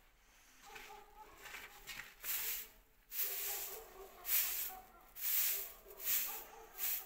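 An animal calling again and again, about once a second, louder from about three seconds in.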